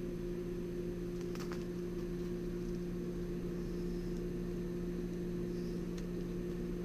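Steady low electrical hum, with a few faint small clicks of thin hook-up wire being handled about a second and a half in and again near the end.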